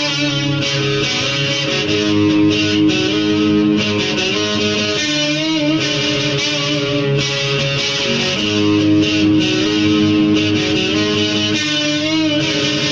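Electric guitar played with a pick through an amplifier: a solo of sustained notes with vibrato over held low notes.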